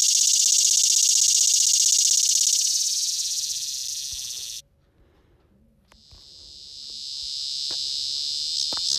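Recorded cicada songs played back one after another. A steady high buzz fades and stops about halfway through. After a second of silence, a second cicada's buzz swells in and turns pulsing near the end.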